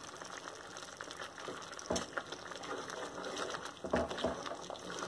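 Mirchi ka salan gravy simmering in a pan, bubbling and crackling lightly, with tamarind juice and jaggery cooking into it. A couple of soft knocks come about two and four seconds in.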